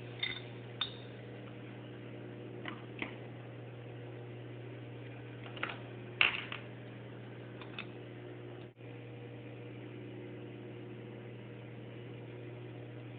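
Light scattered clicks and taps from handling the bobbin parts of a Pfaff 463 industrial sewing machine while threading it, the loudest about six seconds in, over a steady low hum.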